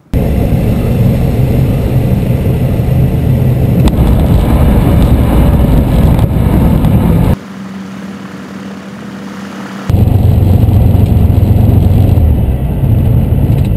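Light aircraft's piston engine and propeller running loud inside the cabin during the landing and rollout. About seven seconds in it drops to a quieter steady hum for a couple of seconds, then comes back loud.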